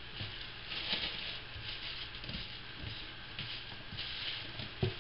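A gloved hand squishing and rubbing paint-coated polymer clay pieces around on a plastic sheet: irregular rustling and squelching that comes in waves, with a few soft knocks.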